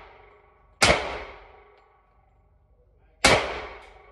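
Two pistol shots from a Glock 30S SF in .45 ACP, about two and a half seconds apart, each dying away in a long echo off the walls of an indoor range booth.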